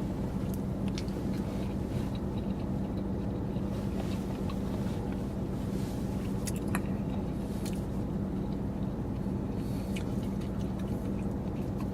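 A person chewing food, with a few faint clicks over a steady low hum.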